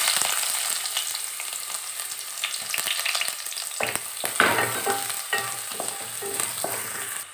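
Chopped shallots sizzling in hot sesame oil, the sizzle strongest at first and slowly easing off. From about four seconds in, a wooden spatula stirs and scrapes them around the pan.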